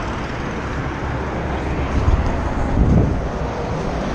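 Steady noise of a small Skoda heard from inside the cabin: a low engine hum under a wide hiss. The low rumble swells briefly about two seconds in and again near three seconds.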